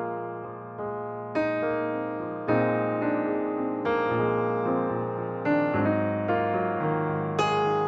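Background music: a slow solo piano piece, notes and chords struck and left to fade, a new one every second or so.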